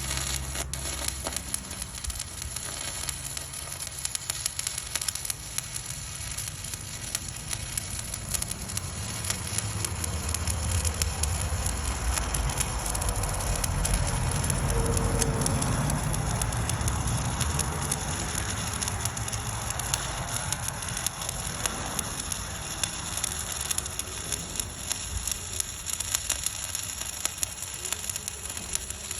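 Stick-welding arc crackling and sizzling steadily as a 1/8-inch 7018 electrode burns at about 124 amps, laying weld onto 3/4-inch AR400 steel plate.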